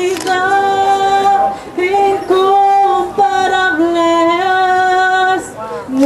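A woman singing a slow melody in long held notes, each about a second or more, stepping a little in pitch, with short breaks between phrases.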